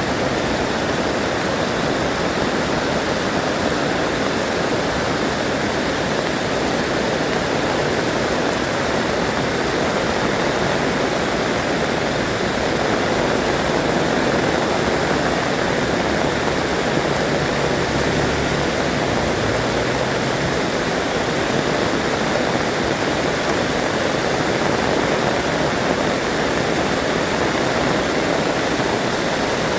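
Heavy rain falling steadily, a dense even rush of water noise without letup.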